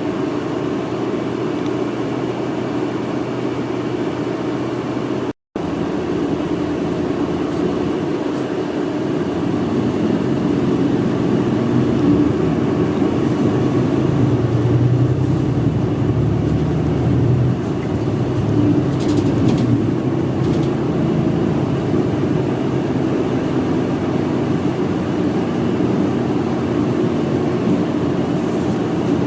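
Inside a city route bus cabin: engine and road noise as the bus drives, with the engine note swelling for a couple of seconds about a third of the way through as it pulls harder. The sound drops out completely for a split second about five seconds in.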